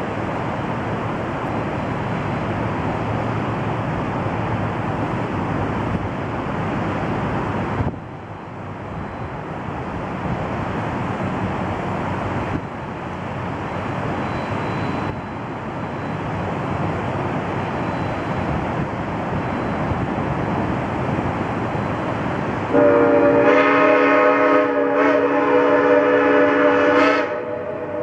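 Shay steam locomotive's chime whistle blowing a loud chord of several notes in one long blast near the end, which breaks off briefly and then sounds again. Before it there is only a steady rushing noise.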